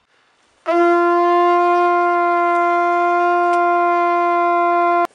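Brass hunting horn blown in one long, steady note that starts under a second in and cuts off suddenly near the end.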